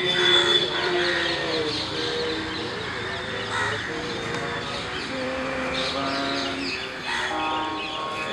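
Crows cawing a few times, short harsh calls about three seconds apart, over a background of long held melodic notes that step from pitch to pitch.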